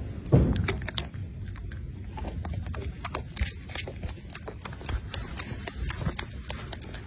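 Golden snub-nosed monkey chewing crunchy green vegetable stalks: irregular crisp crunches and clicks, with one short loud low thump about a third of a second in.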